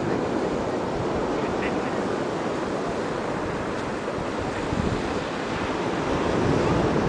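Ocean surf breaking and washing up the beach, a steady rushing sound.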